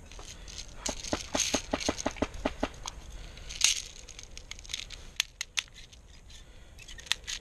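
Airsoft guns firing: a rapid, evenly spaced string of about a dozen shots, then a few scattered single shots.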